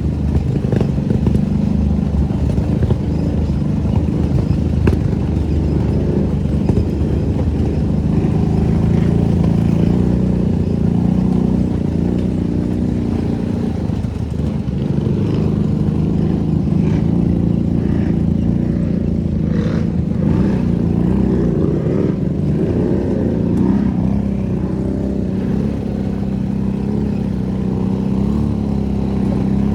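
ATV engine running steadily under way, its pitch wavering slightly with the throttle, with a few short clicks and knocks.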